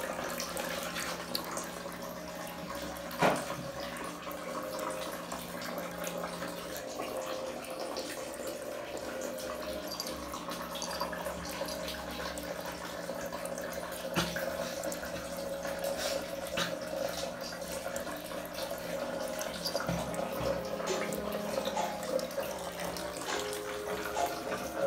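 Water running and splashing, like a tap filling a basin, with a few sharp knocks.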